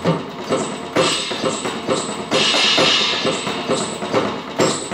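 Drum beat played on an electronic drum kit: a steady run of drum hits, with a cymbal crash a little before halfway through.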